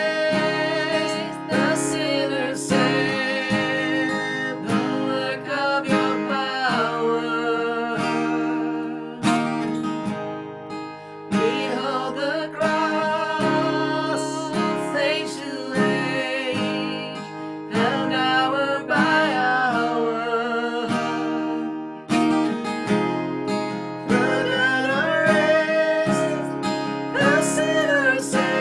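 A man and a woman singing a worship song together to a strummed acoustic guitar.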